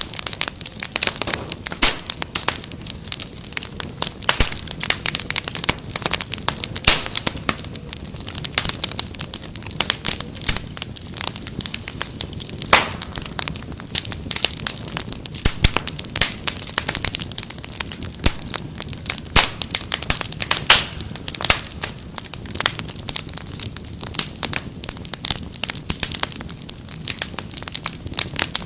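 Wood fire in a fireplace crackling steadily, with many sharp irregular pops and snaps over a low steady hiss and rumble of the flames.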